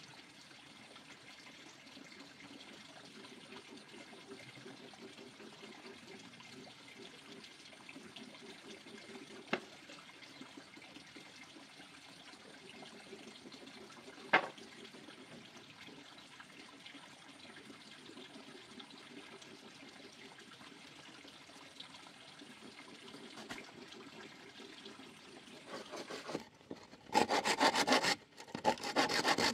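Faint steady background noise with two sharp knocks, then near the end wood being sawn, loud, in quick repeated strokes with a short pause.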